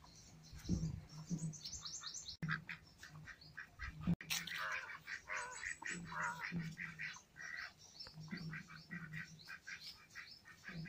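White domestic ducks calling in rapid, short soft quacks, mixed with higher bird chirps.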